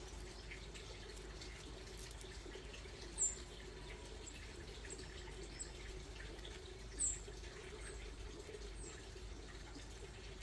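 Short, very high chirps of a small bird, two louder ones about three seconds apart and a few fainter ones between and after, over steady background noise.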